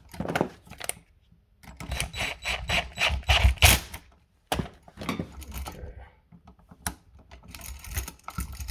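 Quick clicking and rattling of electrical receptacle hardware and wiring being handled, with metal-on-plastic clicks in several short flurries.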